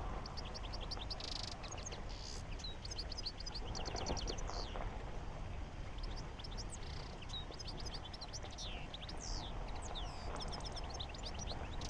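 Small birds chirping in quick twittering series, with a faint steady low hum underneath.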